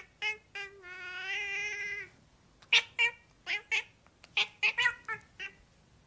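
Domestic cat meowing: a long drawn-out meow about a second in, then a string of short, quick meows.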